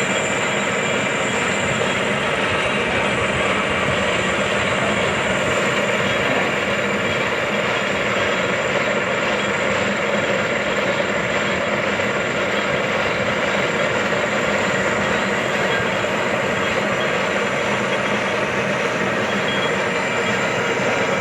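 Metalworking machine tool running steadily, a continuous even mechanical noise with no breaks.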